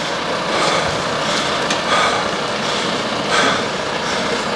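A tow truck loaded with a minibus rolling slowly over asphalt as it is hauled by hand on a rope: a steady rumbling hiss with faint scuffs about once a second.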